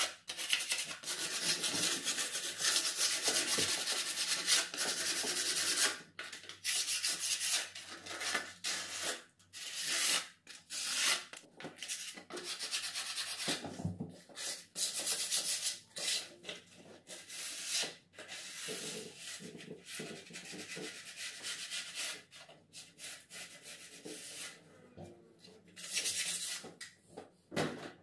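Hand-sanding a bare wooden stair handrail with a small piece of sandpaper: quick back-and-forth rubbing strokes in long spells, broken by a few short pauses.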